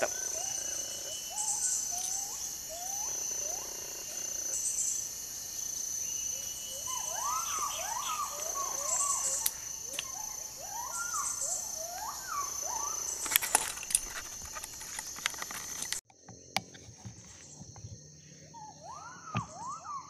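Insects drone steadily at a high pitch, with a long series of short whistled notes that rise and fall, repeated many times through the first two-thirds and again near the end. A few sharp clicks come through the middle, and the sound changes abruptly near the end.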